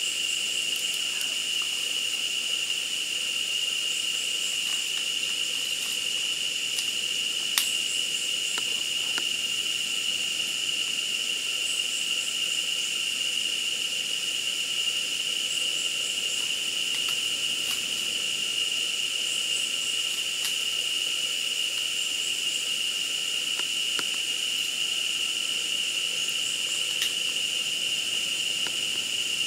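Insect chorus: a continuous high-pitched drone with faint repeated chirps above it. A few sharp clicks sound over it, the clearest about seven and a half seconds in.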